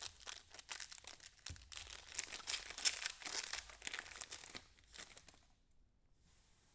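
Trading-card pack wrapper crinkling and tearing as the pack is opened by hand, stopping about five and a half seconds in.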